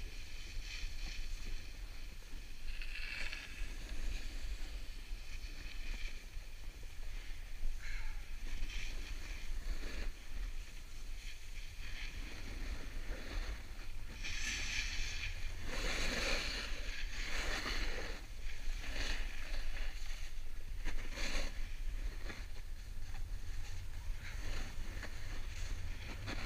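Snowboard sliding and carving down groomed snow: a steady hiss with louder edge scrapes at the turns, a cluster of them past the middle. A steady low wind rumble on the microphone runs underneath.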